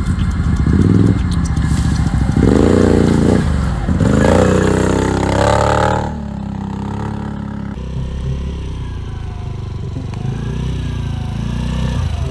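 ATV engines revving and accelerating, the pitch climbing and dropping in several surges. About six seconds in, the sound changes abruptly to a quieter, steadier engine running.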